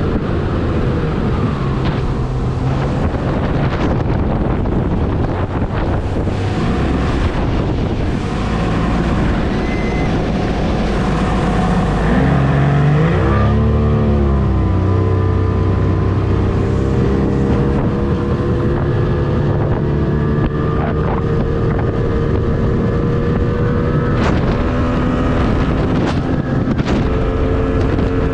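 1987 Yamaha 90 hp two-stroke outboard running at high speed pushing a jon boat, with wind buffeting the microphone. About halfway through, the engine note dips and climbs back, then holds a steady pitch.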